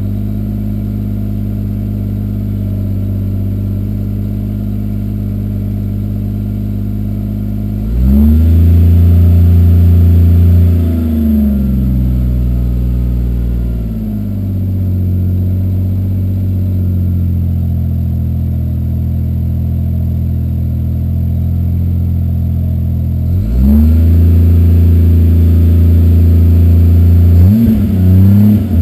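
Toyota 2JZ-GTE straight-six with a Turbonetics T70 single turbo, running cold through a 3-inch catless exhaust with a MagnaFlow muffler, still warming up after a cold start. It idles steadily, and its engine speed rises and holds for about three seconds about eight seconds in, then again from about 23 seconds in until near the end, with a brief dip and rise at the end.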